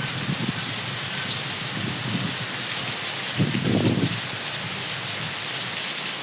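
Heavy rain pouring down in a steady hiss, with low gusts of wind buffeting the microphone about two seconds in and again around three and a half seconds.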